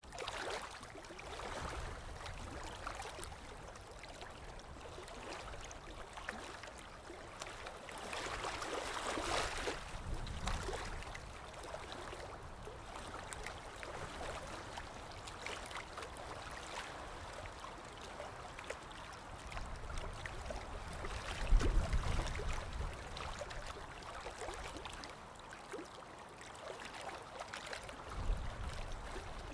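Water lapping and gurgling, with wind, in uneven swells; a low rumbling surge about two-thirds of the way through is the loudest moment.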